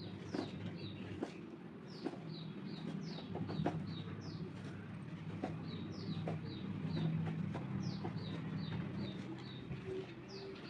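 Birds chirping: many short, high, falling chirps repeating over and over, with a few soft clicks and a low steady hum beneath.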